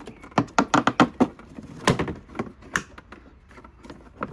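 Plastic body shell and clips of a cordless lawnmower clicking and knocking as the cover is prised up off the deck. There is a quick run of sharp clicks in the first second or so, a louder knock about two seconds in, and a few scattered clicks after.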